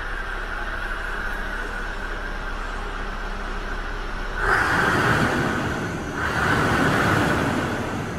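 Scania R560's 560 bhp turbo V8 diesel idling, then revved twice in quick succession about halfway through before dropping back, heard from inside the cab.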